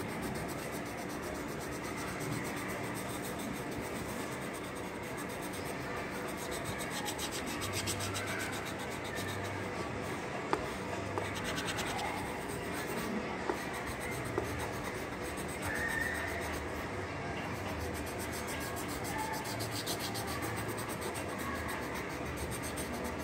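Pencil scratching and rubbing on paper in drawing strokes, over a steady hiss, with a few sharp clicks in the middle.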